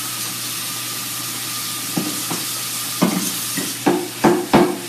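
A pan of maple-glazed carrots sizzling steadily on the stove. From about two seconds in, a series of sharp knocks and clatters, loudest near the end, as a plate and cutting board are handled and set down on the counter.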